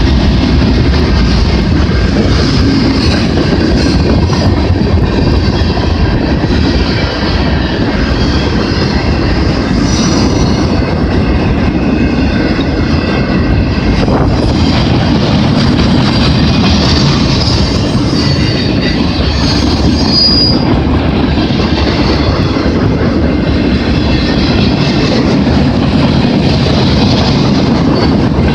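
CN freight train's cars rolling past at close range, a steady heavy rumble with rail clickety-clack, and high wheel squeal that comes and goes, strongest a little past halfway. The train is slowing into the yard where it terminates.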